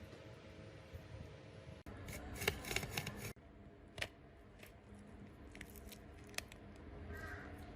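Small hand-tool clicks and snips: a quick run of sharp clicks about two seconds in, then a couple of single clicks, over a faint low hum.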